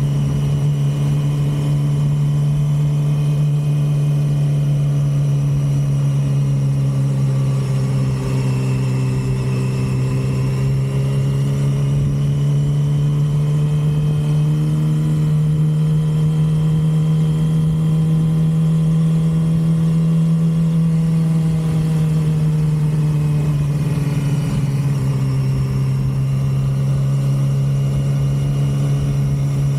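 2006 Yamaha R6's 599 cc inline-four on its stock exhaust, running at steady revs. The engine pitch rises slowly through the middle and eases back down near the end.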